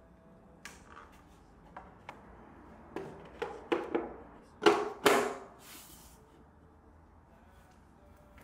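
Book-shaped power-strip storage box being handled: a few light taps, then a cluster of knocks as the lid is closed and the box set down on the floor, the loudest two about five seconds in, followed by a brief scrape.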